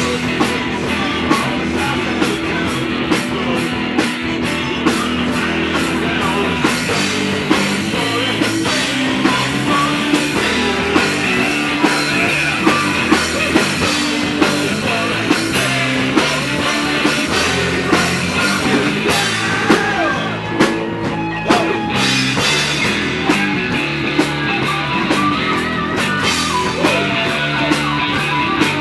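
Live rock band playing: distorted electric guitars, bass and a drum kit with steady hits, with some singing.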